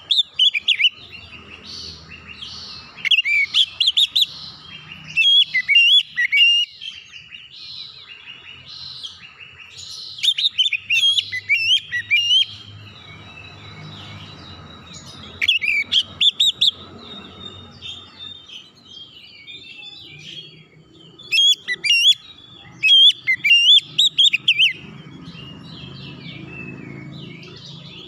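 Oriental magpie-robin (kacer) giving loud, shrill calling phrases of quick up-and-down whistles and screeches, in bursts of a second or two repeated every few seconds with short pauses between.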